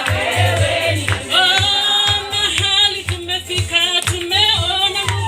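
Gospel worship singing: voices carrying a melody over a band with a steady, regular bass beat.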